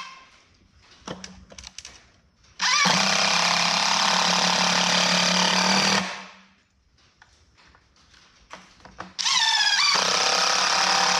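Cordless drill driving wood screws into a 2x4 frame: two runs of the motor, the first about three and a half seconds long starting a couple of seconds in, the second starting near the end, each opening with a short rising whine as the motor spins up. Small clicks and knocks of handling come between the runs.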